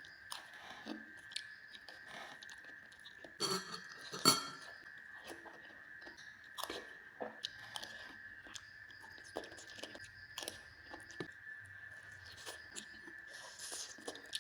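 Close-miked chewing of satay, with wet mouth sounds and scattered small clicks, and one sharp clink about four seconds in. A faint steady high tone runs underneath.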